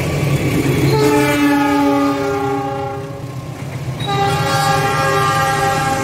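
Air horn of a CC206 diesel-electric locomotive sounding twice. The first blast, about two seconds long, starts about a second in; the second starts about four seconds in and is still going at the end. Both sound over the steady rumble of the passing passenger train.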